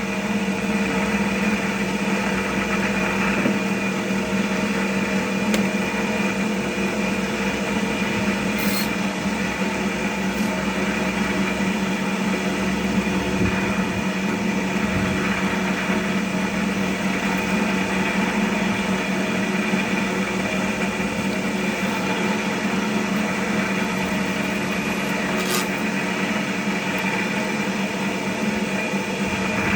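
Large cast cotton candy machine running: its motor spins the heated head with a steady hum and a constant noisy whirr. Speed and heat are set right, so dry floss is coming out and being rolled up.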